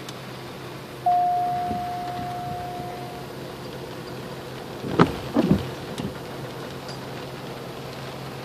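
Inside a car in the rain: a steady hiss of rain with a low hum under it. About a second in, a single chime tone starts sharply and fades over about two seconds. A sharp knock comes around five seconds in, followed by a short rattle.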